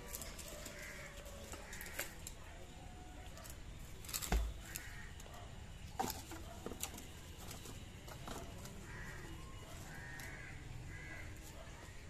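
Crows cawing now and then, short harsh calls, over the light scuffling of puppies playing among dry coconut husks. A sharp knock with a low thump about four seconds in is the loudest sound, and another click follows about six seconds in.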